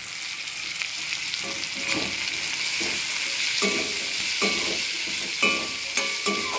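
Sliced onions sizzling in hot oil in a kadhai, being stirred and fried toward brown, with a spatula scraping the pan in repeated strokes from about a second and a half in.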